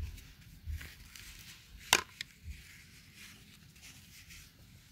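Toys being handled: a few soft bumps and one sharp click about two seconds in.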